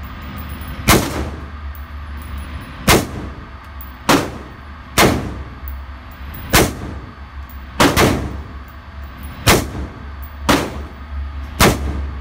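Pistol shots, about ten at uneven intervals of roughly a second, each with a short ringing tail, over a steady low hum.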